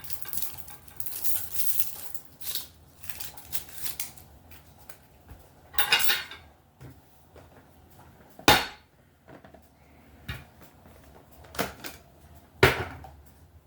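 Kitchen knife chopping an onion on a cutting board: a run of quick knocks in the first few seconds, then scattered single sharp chops.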